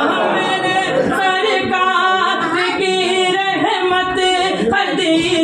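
A man singing a naat unaccompanied, drawing out the words of a line in a long, bending melody.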